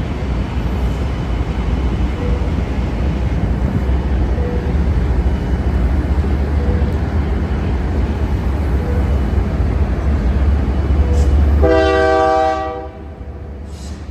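Union Pacific freight train passing, its locomotives and then double-stack container cars making a heavy low rumble. Near the end a train horn sounds once for about a second, and the rumble then drops away.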